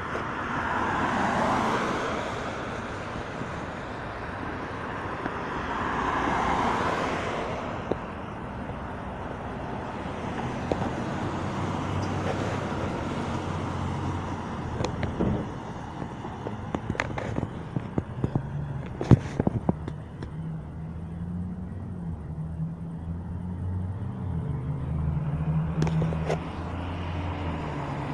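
Street traffic: two cars pass by in the first seven seconds, then a vehicle engine runs with a low rumble whose pitch steps up and down, with a few sharp clicks on top.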